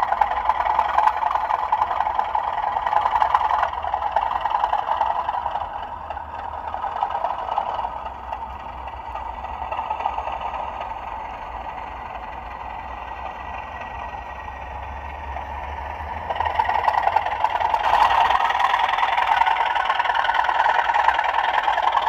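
Sound-fitted Bachmann OO gauge Class 37 model locomotive running along the track, its onboard speaker playing a recorded English Electric diesel engine sound. The engine note eases in the middle and grows louder again about three quarters of the way through.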